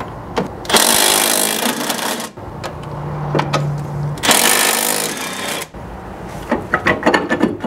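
Cordless impact wrench hammering out a rear brake caliper bracket's two 14 mm bolts: two bursts of rapid hammering, the first about a second and a half long and the second about a second, with a steady motor whir between them. A few light clicks follow near the end.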